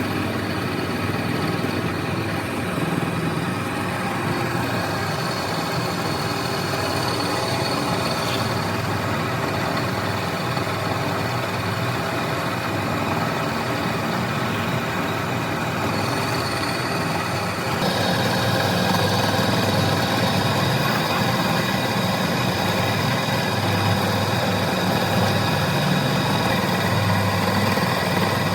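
Woodworking machinery running steadily, a motor hum with several steady tones. It gets louder and changes tone about 18 seconds in.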